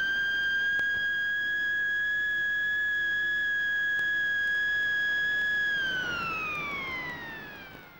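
A single steady high-pitched tone with a few overtones, held for about six seconds, then gliding down in pitch as it fades out, like a siren winding down.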